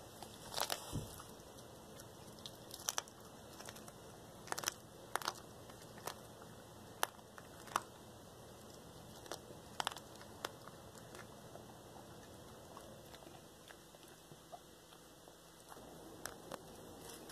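Cat chewing raw Cornish hen feet, crunching the small bones with sharp, irregular cracks. The cracks come often in the first half and thin out later.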